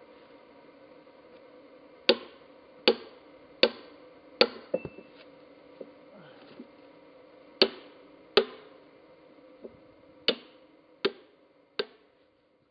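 Sledgehammer striking a steel wedge set in the split of an Osage orange fence-post log, driving it in to open the post. Sharp metallic clangs with a short ring, in three quick runs: four strikes, then two, then three.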